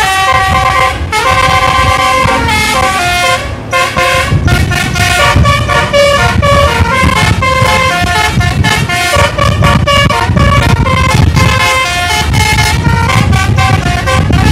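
Bus telolet horn (basuri multi-tone air horn) playing a tune of quick stepped notes in short phrases. A low rumble joins about four seconds in.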